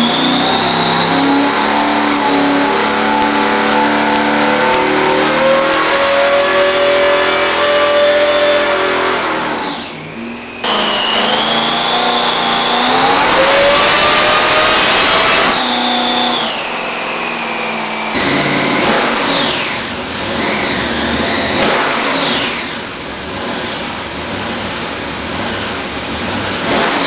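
Roots-supercharged 406 small-block Chevy V8 with 32 valves and two carburettors, run hard on an engine dyno, with a high whine riding over the engine note. The revs climb steadily for about nine seconds and drop off, climb again to a peak about fifteen seconds in and cut off, then come several quick throttle blips near the end.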